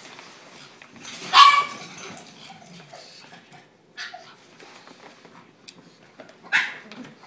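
Pug puppy giving two short barks, a louder one about a second and a half in and another near the end, with light rustling between as it shifts about in the tennis bag.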